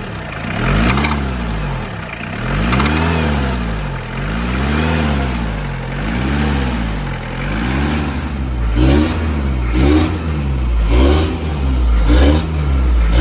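Hindustan Contessa Classic's engine being revved again and again through its exhaust, the pitch rising and falling with each press of the throttle: slow swells about every two seconds at first, then quicker, sharper blips about once a second in the second half.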